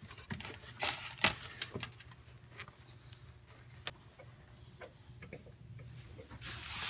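Scattered light clicks and taps of hands handling wiring and plastic trim inside a car door, a few sharper ones about a second in, over a faint steady hum, with a rustle near the end.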